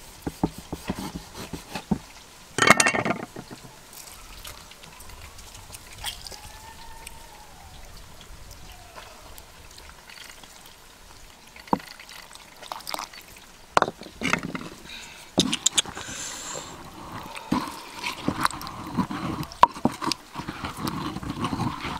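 Lime juice being squeezed and dripping into a wooden mortar of chilli, garlic and peanut paste. Then a stone pestle knocks and grinds against the mortar, the knocks coming closer together in the last several seconds.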